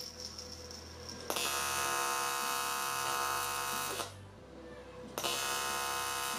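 AC TIG welding arc buzzing on a cast aluminum engine block as the welder strikes the arc, builds a puddle and dabs filler. The buzz starts about a second in, stops around four seconds, and starts again about a second later.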